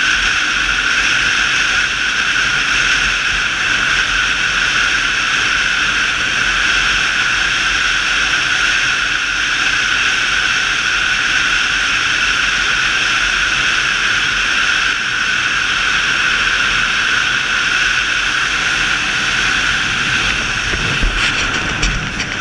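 Motorcycle at steady cruising speed, heard as a constant rush of wind on the microphone over the running engine. A couple of short knocks come near the end.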